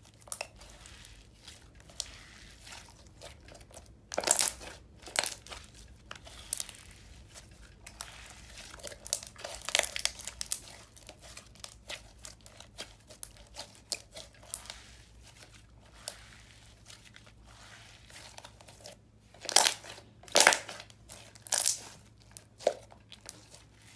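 Hands squishing and pressing a clear slime with glitter: wet sticky squelches and sharp air-bubble pops. The loudest pops come about four seconds in and in a cluster near the end.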